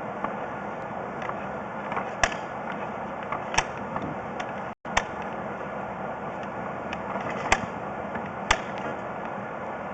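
Sharp clicks and knocks at irregular intervals, about half a dozen in all, over a steady background noise: a sewer inspection camera's push cable being fed down a 3-inch plumbing vent pipe. The sound cuts out for an instant about halfway.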